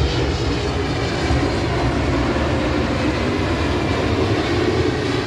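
Aeroplane engine noise: a steady, loud drone with a strong low rumble and a few faint steady tones above it.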